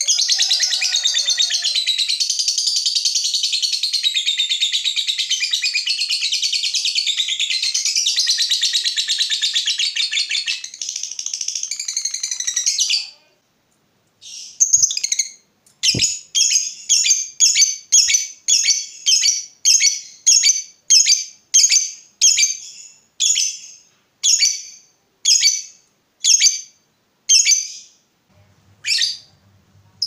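Lovebird's long, unbroken shrill chattering trill (the 'ngekek panjang' call) lasting about thirteen seconds; after a brief pause it gives a run of separate sharp chirps, about two a second, spacing out near the end. A faint knock comes shortly after the chirps begin.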